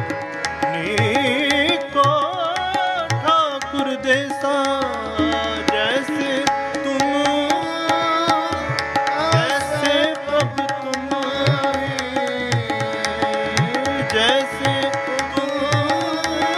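Sikh Gurbani kirtan: harmonium playing held tones with tabla keeping a steady rhythm, and a voice singing a gliding, ornamented melody line over them.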